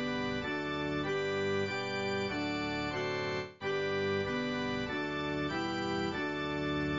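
Organ music played as held chords that change every half second or so, with a brief break about three and a half seconds in.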